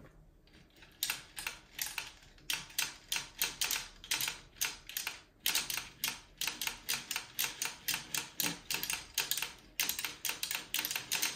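Dean and Bean plastic circular sock knitting machine being hand-cranked slowly: its needles click rapidly and evenly as the cam ring turns, with brief pauses about five seconds in and near the end.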